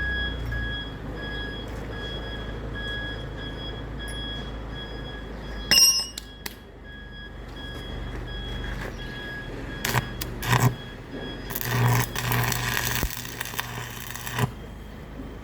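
A steady low machine hum with a faint, broken high tone over it, and metal knocks and clanks on top: one sharp loud knock about six seconds in, then a cluster of clanks and scraping noise later on.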